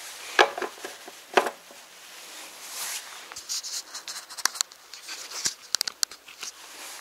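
Two sharp knocks about a second apart, then a run of light clicks and rustling from objects being handled.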